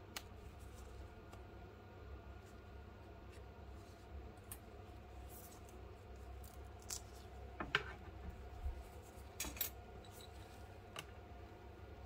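Small hand tools clicking and scraping against a tablet's frame as it is worked on and handled: scattered light clicks, busiest in the second half, over a low steady hum.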